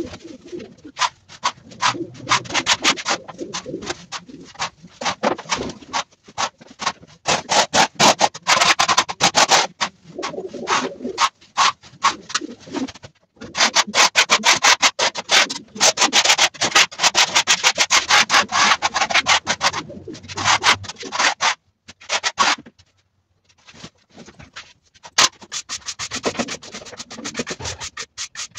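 Brisk sweeping and scraping strokes on a concrete floor as straw litter and pigeon droppings are gathered up, in bursts with a couple of short breaks. Pigeons coo softly underneath.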